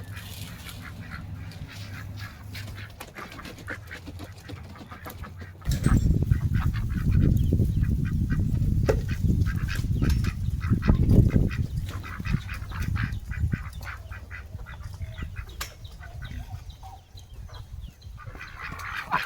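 Farm ducks calling again and again in short notes. From about six to thirteen seconds in, a loud low rumble on the microphone covers them.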